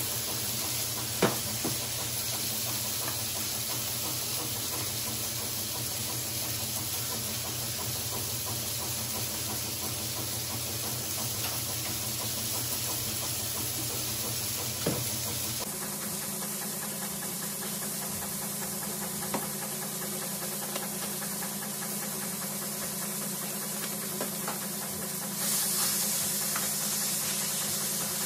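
Ground beef sizzling steadily in a frying pan, with a few sharp knocks from seasoning shakers and a utensil.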